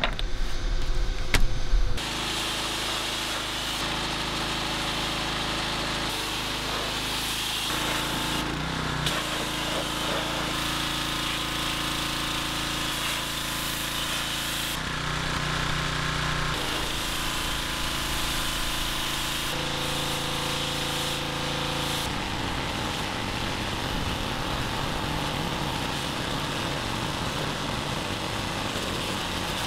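A pressure washer running steadily, its humming pitch shifting now and then, with the hiss of the jet spraying water onto a car's body.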